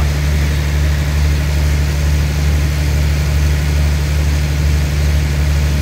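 Standing diesel passenger train idling at the platform: a steady, even low engine drone.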